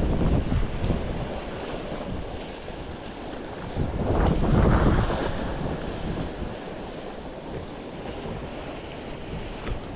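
Wind buffeting the microphone over surf washing on the shore, a steady rumbling rush that swells louder at the start and again about four seconds in.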